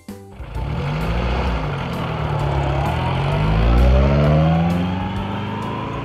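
Motor vehicle engine sound effect: the engine revs up, its pitch climbing steadily and loudest about four seconds in.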